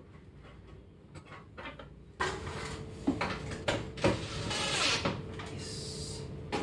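Handling noise from fitting an over-the-range microwave under a cabinet: faint clicks, then from about two seconds in scraping and clunking of the unit and its metal vent duct against the cabinet, with a few sharp knocks.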